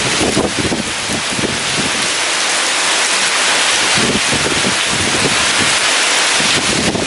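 Heavy rain pouring steadily with strong wind gusting in irregular low surges.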